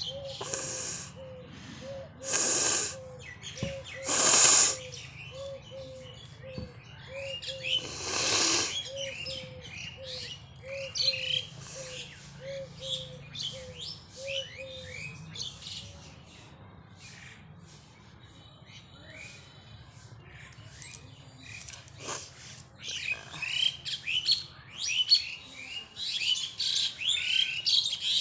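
Four loud, hissing blasts of air forced out through a person's nose in the first nine seconds, as in nose blowing or sneezing. Birds chirp throughout, with a short low note repeating about every two-thirds of a second through the first half.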